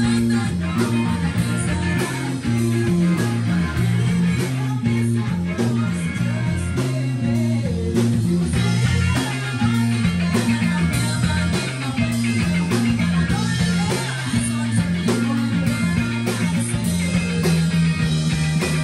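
Rock band playing: electric guitar over a bass line that moves between held notes, with steady drum hits.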